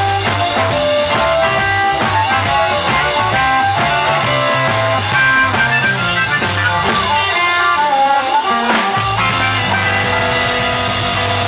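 Live electric blues band playing: amplified harmonica over electric guitar, bass guitar and drum kit. About nine seconds in, the beat stops and held notes ring on.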